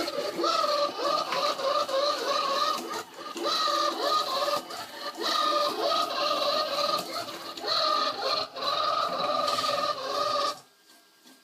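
XRobot robot vacuum cleaner running, its motor and brushes making a steady whine that wavers in pitch. The sound drops away briefly near the end.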